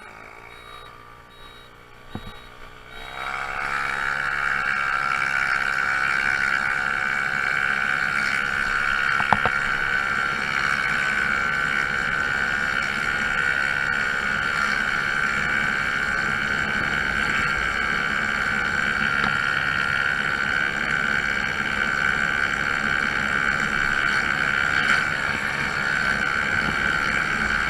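A Honda Zoomer scooter's small four-stroke single-cylinder engine idles quietly, then about three seconds in it revs up as the scooter pulls away. It then runs at a steady cruising speed.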